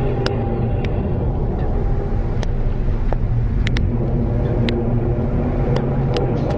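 A loud, steady low rumbling drone with several held tones layered in it, one of the unexplained 'strange sounds' reported in 2012 and here called a completely insane sound. Short sharp clicks come through now and then.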